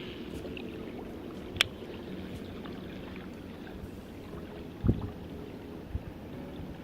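Wind buffeting the microphone, a steady low rumble, with one sharp click about a second and a half in and a dull thump near the end.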